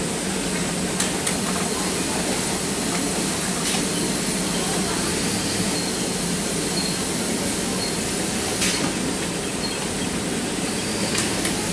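Many industrial sewing machines running together on a garment factory floor: a steady hum and whir with a few sharp clicks scattered through it.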